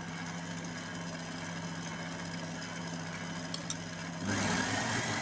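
Electric stand mixer running steadily, whisking egg whites, with a constant motor hum. About four seconds in it jumps to a louder, higher hum.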